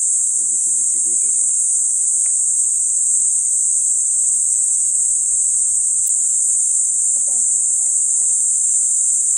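Insects chorusing in one loud, steady, high-pitched buzz that holds without a break.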